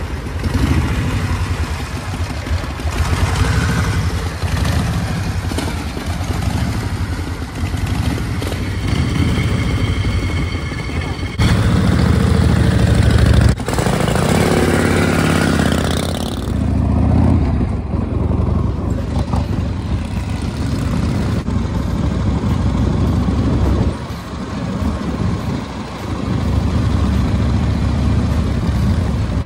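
Chopper motorcycle engines running, idling and revving as the bikes ride off, the exhaust note rising and falling and changing abruptly several times.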